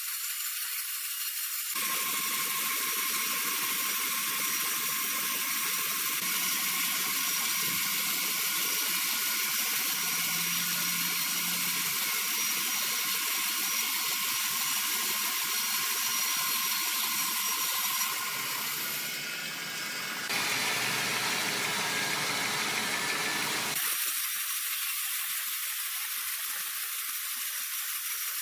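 Large horizontal band sawmill running as it cuts through a log: a steady hiss with thin, high whining tones from the blade. A deeper running noise joins from about two seconds in until about twenty-four seconds in, with abrupt changes along the way.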